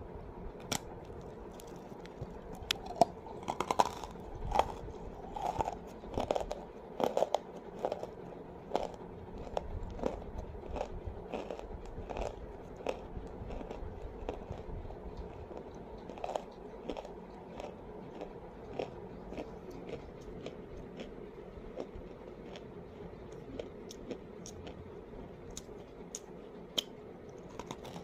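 Pink edible clay being bitten and chewed close to the microphone: a run of sharp, dry crunches, thickest and loudest a few seconds in, then slower, scattered crunching as it is chewed down.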